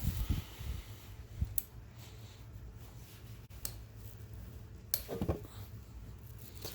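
A few sharp, separate metallic clicks from a hand wrench on the cylinder-head bolts of a Honda CBR600 F4i as they are loosened a fraction of a turn at a time. The click about five seconds in is followed by a brief rattle. A low steady hum runs underneath.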